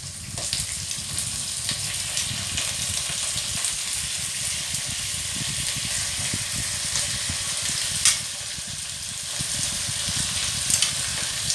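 Raw chicken pieces marinated in pineapple juice sizzling steadily as they are added to a hot pan of sautéed onions and garlic. There is a sharp knock about eight seconds in.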